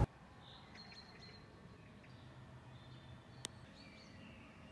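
Quiet outdoor ambience with a few faint birds chirping, and a single sharp click about three and a half seconds in.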